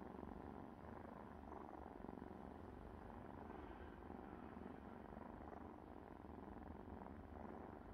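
A domestic cat purring faintly and steadily.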